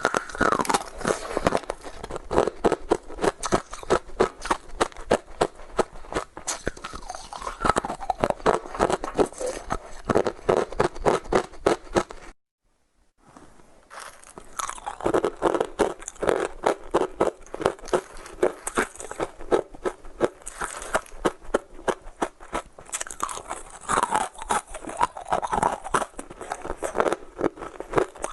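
Ice being bitten and chewed close to the microphone: dense, rapid crunching and crackling, broken once by about a second of dead silence roughly twelve seconds in.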